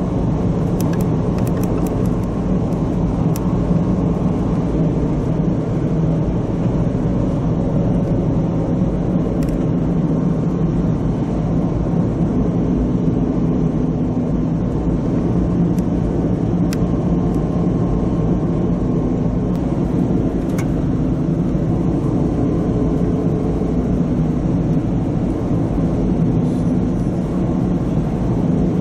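Steady cabin noise of a car driving on an expressway, heard from inside: an even low drone of road and engine noise with no change in level.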